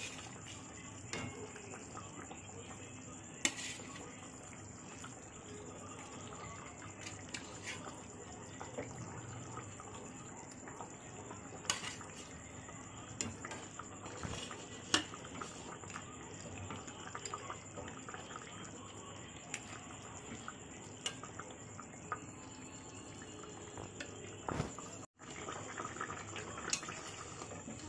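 Watery fish-curry broth boiling in a pan: a steady bubbling with scattered clicks and light knocks from the pan.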